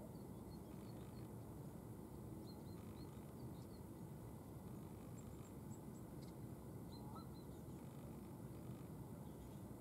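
Faint outdoor ambience: a steady low rumble under scattered faint, short, high chirps from small birds.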